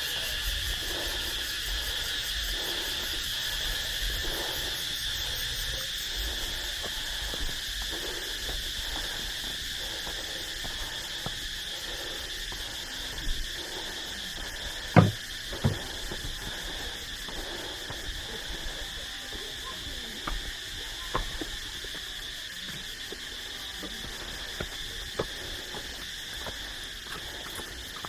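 Steady chorus of tropical insects at dusk, a continuous drone at two high pitches, with regular footsteps of someone walking a path and stone steps beneath it. A couple of sharp knocks stand out about halfway through.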